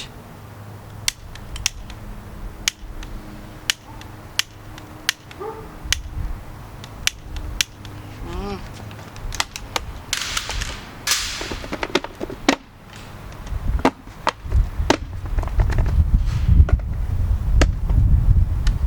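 Barbecue igniter clicking over and over, a sharp snap about every half second, as it is fired to light the propellant in a soda-bottle potato cannon, with a brief hiss about ten seconds in and a low rumble near the end.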